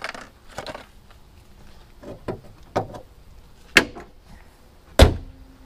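A few light knocks and clunks as a plastic horn speaker is test-fitted in a Subaru Forester's engine bay. About five seconds in comes one loud, heavy thump: the hood being shut.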